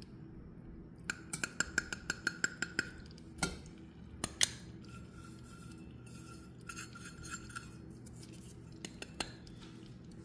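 Stainless steel measuring cup tapped and knocked over a saucepan to free sticky packed brown sugar. First a quick run of light metallic clicks with a faint ring, then a louder knock about four seconds in, and a few more light taps later.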